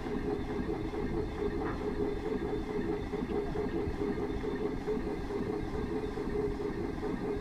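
1910 Minneapolis 22 hp steam traction engine running steadily under steam, with steam escaping around the cylinder.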